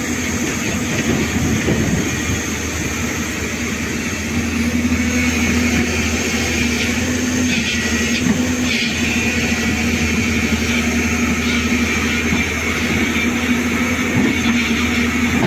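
Heavy diesel engine running steadily under load, a low drone that gets a little louder about four and a half seconds in.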